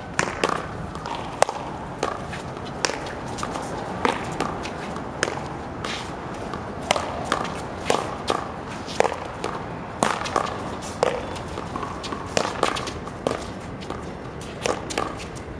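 Paddleball rally: a stream of sharp smacks as the ball is struck by paddles and bounces off a concrete wall and court, irregular at about one or two a second.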